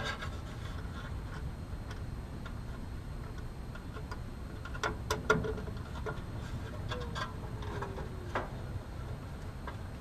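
A few scattered light clicks and taps from tools and wiring being handled at an air conditioner condensing unit's capacitor connections, over a steady low background rumble. A faint falling tone sounds briefly about two-thirds of the way through.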